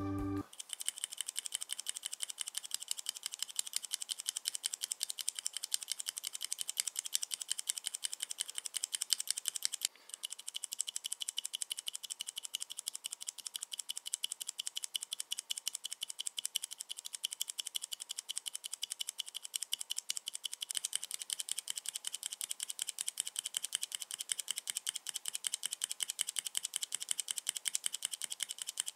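Mechanical keyboard with Cherry MX switches typed on rapidly, a dense run of key clicks and bottoming-out clacks. It pauses briefly about 10 seconds in and changes slightly around 21 seconds, as standard keys and keys quietened by rubber O-rings on the keycap stems are played in turn.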